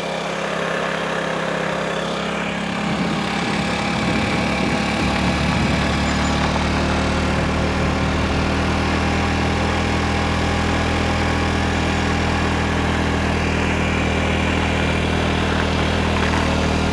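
Engine of the slow-moving vehicle carrying the camera running steadily, a low even drone that gets a little louder about four to five seconds in.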